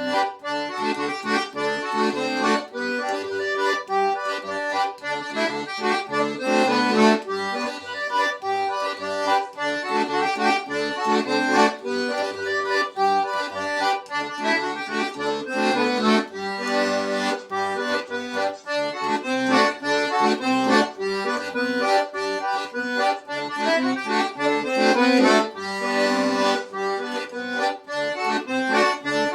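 Accordion playing a continuous tune, a melody of changing notes over short, regularly repeated bass notes.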